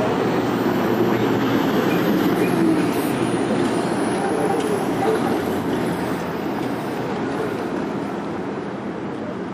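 Heavy trucks passing close by in city traffic: a box truck and then a tractor-trailer, with engine rumble and tyre noise loudest over the first half and slowly fading toward the end.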